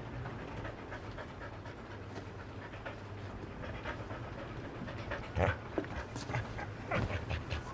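Dog panting, over a steady low hum, with a few short sharp knocks in the second half.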